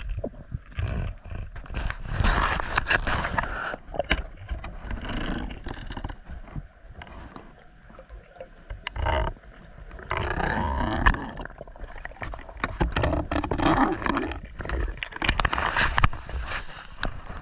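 Muffled underwater noise picked up through a camera housing: irregular rushing and rumbling bursts of water moving around the camera.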